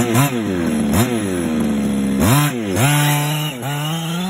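Small RC car engine revved in about five quick throttle blips, each a sharp rise and fall in pitch, settling back to a steady idle near the end.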